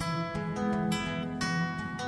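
Background music: acoustic guitar playing plucked and strummed notes.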